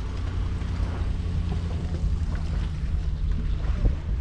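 Low, steady rumble and hum of a boat being towed on its trailer by a pickup up a launch ramp, with wind noise on the microphone.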